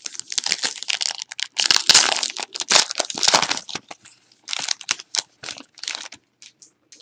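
Trading-card pack wrapper being torn open and crinkled by hand: dense crackling, with a short lull partway and only a few scattered crinkles near the end.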